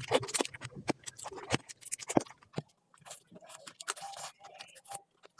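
Close-up eating sounds: irregular chewing, crunching and smacking clicks, thinning out about halfway through.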